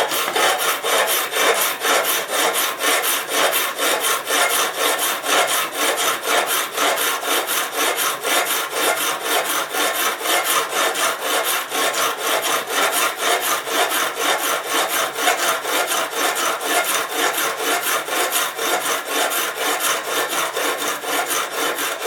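Sharpening stone rubbed back and forth along a vegetable peeler's blade on a guided sharpener, in quick, even scraping strokes: the final honing pass that finishes the edge.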